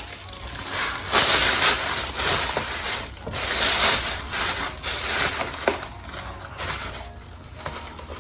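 Packaging material rustling and crinkling in irregular bursts as an order is packed by hand, tailing off near the end.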